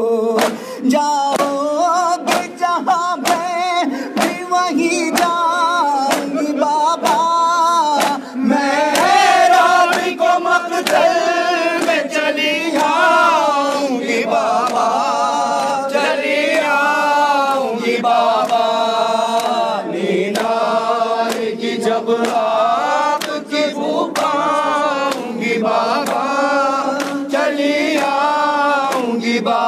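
A crowd of men chanting an Urdu noha (mourning lament) together, with the slaps of hands beating on chests in time, about two a second and plainest in the first several seconds.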